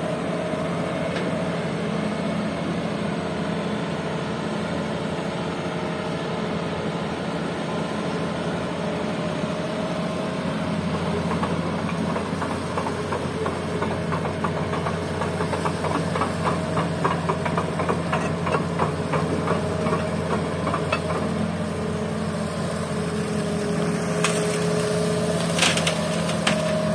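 Diesel engines of a Hitachi hydraulic excavator and a dump truck running steadily as the excavator digs river gravel and swings its full bucket over the truck bed. A rapid clatter runs through the middle, and a few sharp metallic clanks come near the end.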